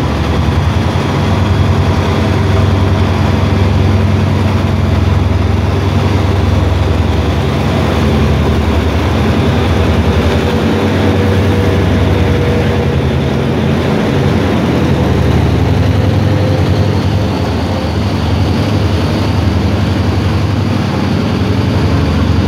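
The diesel-electric engine of an SRT Hitachi locomotive (HID 4513) runs as it pulls a train out of the station and passes close by, a loud steady low drone.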